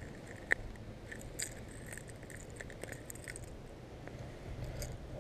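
Small metallic clicks and rattles of a crankbait's hooks being worked free of a caught bass's mouth, with one sharp click about half a second in and scattered lighter clicks after it.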